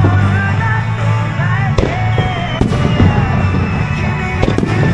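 Aerial firework shells bursting with sharp bangs, one about two seconds in, another just after, and a close pair near the end. Music with a steady bass line plays throughout and is the loudest sound.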